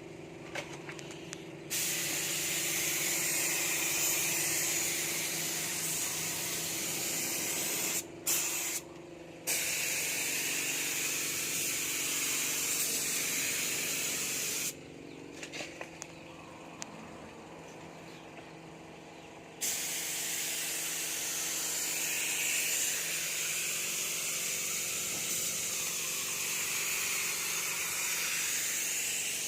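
A steady hiss of spraying air that starts about two seconds in, breaks off briefly twice around eight to nine seconds, stops again for about five seconds mid-way, then resumes, over a steady low hum.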